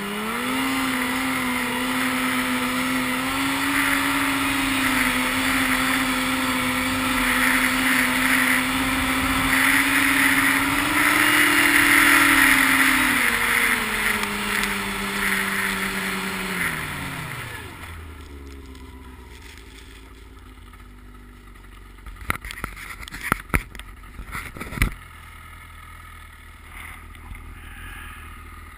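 Yamaha RX-1 snowmobile's four-stroke four-cylinder engine running at a steady pitch while riding, with a slight swell, then winding down over a few seconds to a low rumble. Several sharp knocks come near the end.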